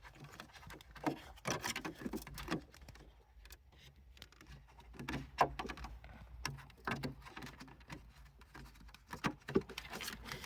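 Scattered clicks, taps and light knocks of a car's interior trim parts and a phone-player unit being handled and pushed into place, over a faint steady low hum.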